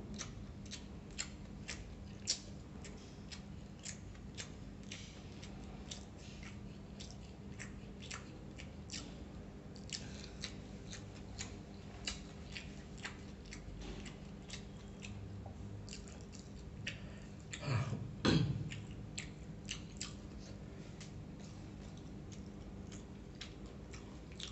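Wet chewing and lip-smacking clicks several times a second as a person eats rice and fried chicken, with a louder, longer burst about eighteen seconds in, over a low steady hum.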